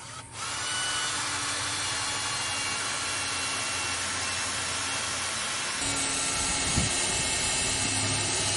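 A power tool running steadily with a motor whine, its sound shifting a little about six seconds in.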